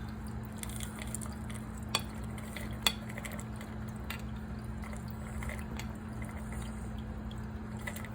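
Light clicks and clinks of kitchenware being handled while snacks are got out, with two sharper clicks about two and three seconds in, over a steady low hum.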